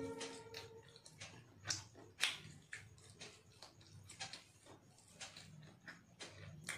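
Close-up eating sounds: wet chewing and lip-smacking, with irregular soft clicks and squelches as fingers work biryani rice on a glass plate.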